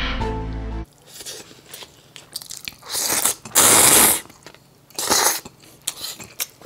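A short musical tone cuts off just under a second in. Then come mouth sounds of eating buckwheat noodles (makguksu) in broth: small chewing clicks and loud slurps, the longest a little past three and a half seconds, another near five seconds.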